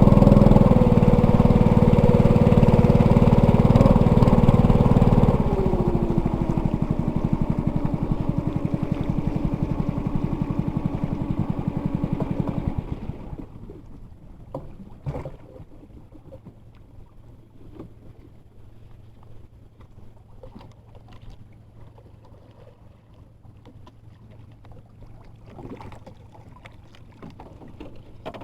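A small boat engine running loudly, then throttling back about five seconds in and shutting off about 13 seconds in. Faint knocks and a low hum follow.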